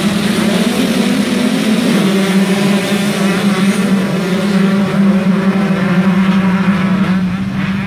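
Many motocross dirt bikes running together at high revs, their engines blending into one loud, steady drone that wavers in pitch early on.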